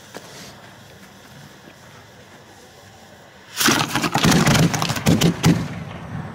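A firework goes off about three and a half seconds in: a sudden loud burst of rapid crackling pops that trails off over about two and a half seconds.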